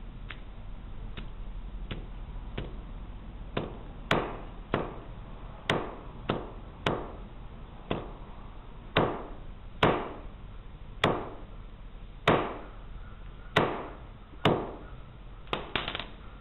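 Claw hammer striking a small yellow object on a concrete floor again and again: light taps at first, then about a dozen harder blows roughly a second apart, with a few quick knocks near the end.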